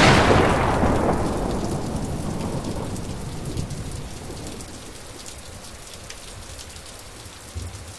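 Thunderstorm: steady rain with a rumble of thunder that dies away over the first few seconds, the whole sound slowly fading, and a low rumble again near the end.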